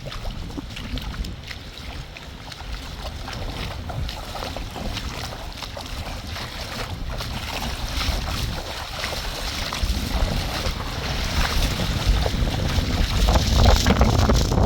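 Wind buffeting the microphone, with a deep rumble, scattered rustling clicks and the hiss of moving water. It grows louder toward the end.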